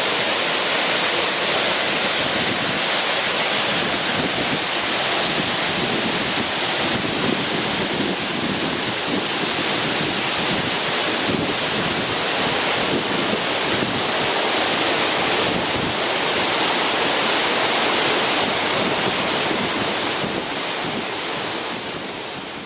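Waterfall: a steady, loud rush of falling water that begins to fade out near the end.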